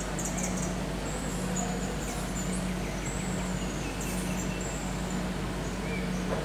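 Birds calling: short, high, thin whistles and chirps, some gliding down in pitch, with a few quick ticking trills. Beneath them run a steady hiss and a low hum that comes and goes.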